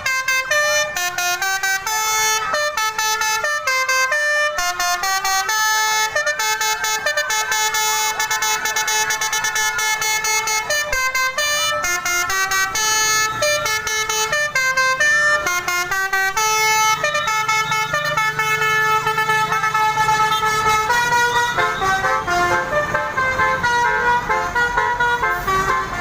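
Basuri telolet multi-tone horn on a bus playing a rapid melody of short notes that jump between pitches, some sliding up or down, without a break. A low engine rumble sits under it for a few seconds in the middle.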